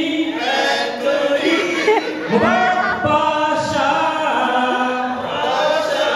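Men singing unaccompanied: a lead male voice through a microphone with a group of men's voices singing along, a Malayalam boat song with words sung in Farsi.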